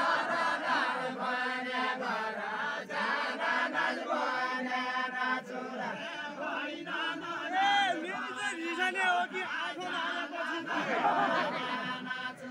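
A large group of voices singing a deuda geet, the Far-Western Nepali folk song, as an unaccompanied chanted chorus of held, overlapping sung lines.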